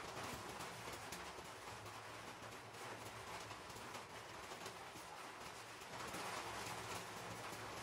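Knife cutting a cucumber on a wooden chopping board: faint, irregular taps of the blade against the board over a steady background hiss.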